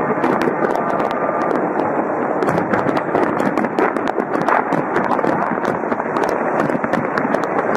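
Aerial fireworks shells bursting and crackling: a rapid, irregular string of sharp pops, several a second, over a continuous dense din.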